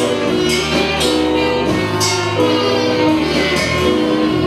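Instrumental music accompanying a stage performance: held melodic notes over a steady bass line, with light percussion strikes about once a second.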